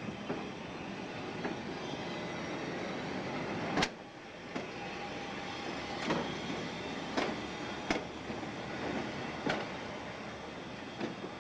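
Replica Pacific Electric Red Car streetcar rolling past on the track: a steady rumble with a string of sharp, irregular clacks from its wheels on the rails, the loudest about four seconds in.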